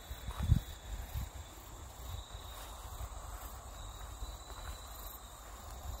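Insects trilling steadily in one continuous high tone. A few soft low thumps of footsteps on the grassy path come in the first second or so.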